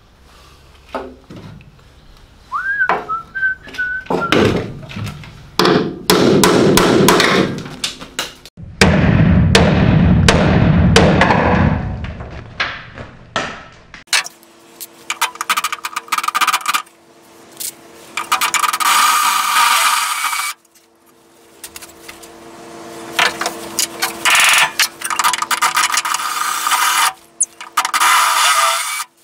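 Cordless drill with a spot-weld cutter drilling out spot welds in the steel engine-bay bulkhead of a Morris Minor, running in loud bursts with short pauses, the motor whining and the cutter chattering against the sheet metal.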